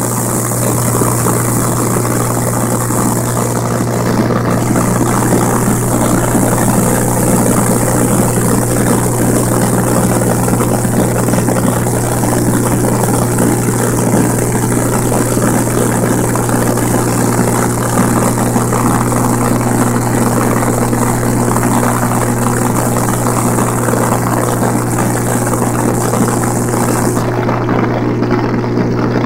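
Cessna 182 single piston engine and propeller droning steadily in cruise flight, heard from inside the cabin: a constant low hum over a wide rushing hiss. Near the end the highest part of the hiss drops away suddenly.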